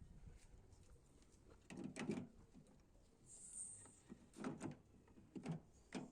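A few short, dull knocks and clunks, about four in all, as a Mitsubishi L200 door handle is worked back into place in the door.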